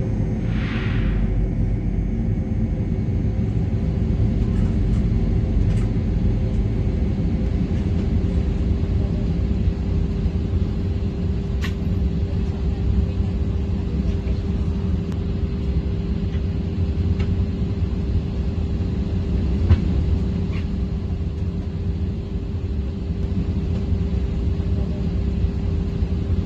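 Steady low rumble and hum inside a parked airliner's cabin, the ventilation running with a constant tone, broken only by a short hiss about a second in and a few faint clicks.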